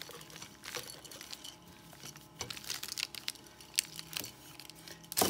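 Wooden rolling pin rolled back and forth over pie-crust dough on a floured surface: faint rubbing and scraping with a few light knocks.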